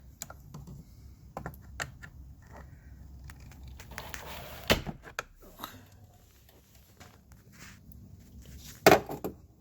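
A screwdriver prying and scraping at a scooter's rubber battery hold-down strap and metal clip: scattered small clicks and scrapes, a sharp knock about halfway through and a louder clatter near the end.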